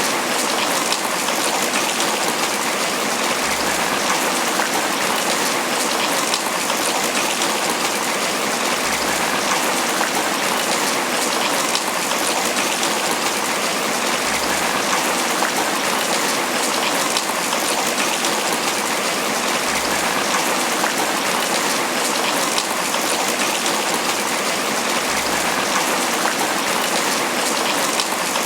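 Tropical rain falling steadily on banana leaves: a dense, even patter of drops.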